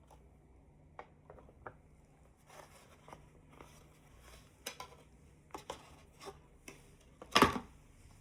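Packaging and headphones being handled during an unboxing: a series of small clicks, taps and rustles, with one louder knock about seven seconds in.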